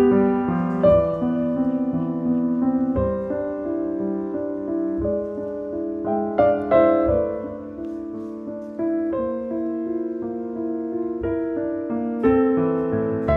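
Background piano music: chords struck every second or two and left to ring.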